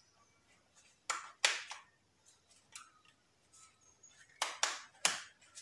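Rubber band being stretched and wound around a foam sponge: sharp snaps and rubbing, twice a little after a second in and three times near the end.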